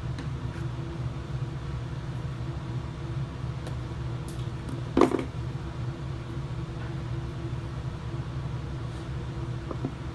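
Steady low hum with a single sharp clack about halfway through, and a few faint ticks from parts being handled.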